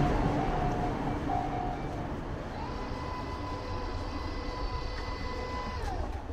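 A train going past and fading into the distance, its rumble dying away over the first couple of seconds. From about two and a half seconds in a steady high whine sounds, then drops in pitch and stops near the end.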